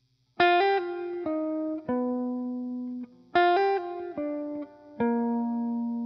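Background music: a plucked guitar plays a short phrase of single notes, each ringing out and fading, and the phrase is played a second time about halfway through.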